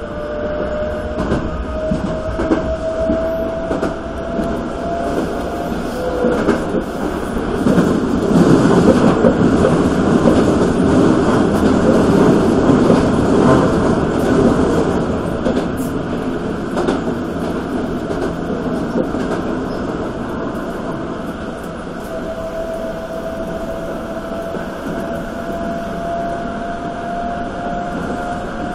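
Toei 5300 series electric train running at speed, heard from inside the cab: wheels rumbling and clacking over the rails. A motor whine rises slowly in pitch over the first few seconds and again near the end. The rumble grows louder for several seconds in the middle.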